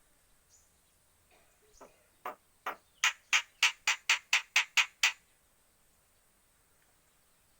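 A jalak (starling) giving an angry scolding call: a quick series of about a dozen harsh squawks. They build from faint to loud within a second, run at about four a second, and stop abruptly.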